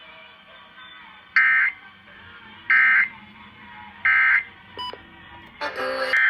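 Emergency Alert System end-of-message signal heard over a radio: three short bursts of warbling digital data tones about a second apart, over steady receiver hiss, marking the close of the required monthly test. Near the end another burst of tones starts.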